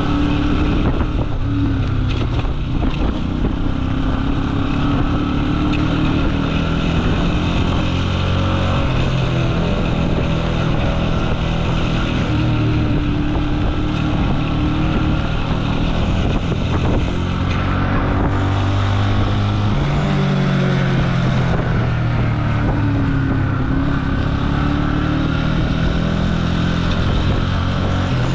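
Jialing 150 cc motorcycle engine running under way, its pitch rising and falling with the throttle, with a dip and a change of note about two-thirds of the way through, as with a gear change. Wind rushes over the microphone.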